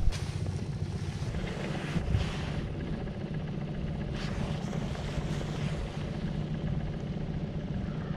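Steady low motor hum on a boat, with a sharp knock right at the start and a low thump about two seconds in.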